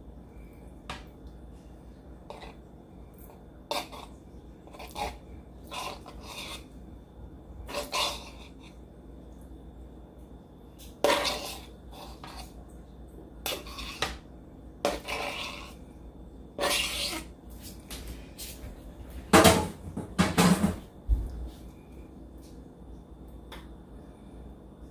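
Irregular clinks, scrapes and rustles of kitchen handling as diced chicken is put on top of a baking tray of vegetables, with utensils and the tray knocking. The loudest clatter comes in a cluster near the end.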